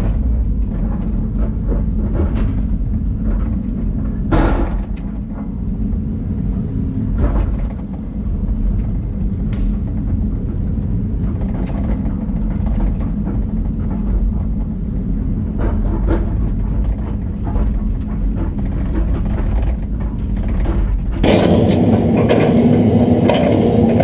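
LiuGong excavator's diesel engine and hydraulics running steadily under load, heard from inside the cab as a muffled low drone, with scattered knocks and cracks as the bucket tears out pine stumps and roots. Near the end the same machine is heard from outside the cab, louder and brighter.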